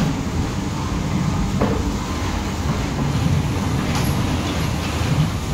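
Ghost train car rolling along its track in the dark: a steady low rumble with a few faint clicks.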